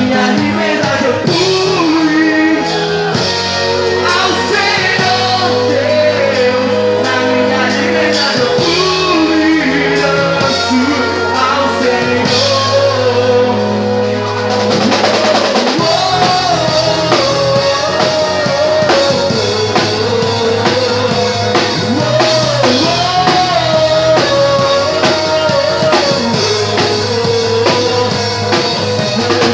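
A band playing a rock-style song with drum kit, bass and guitar, a voice singing the melody over it. A cymbal-heavy drum fill comes about fifteen seconds in.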